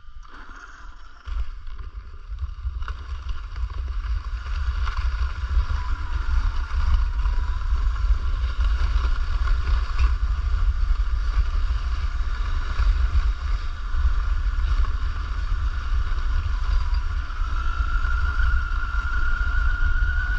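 A 1/5-scale 12S RC car's electric drivetrain (Hobbywing 560kv brushless motor) whining as it runs, under a heavy, steady rumble of wind buffeting the microphone. The whine rises in pitch near the end.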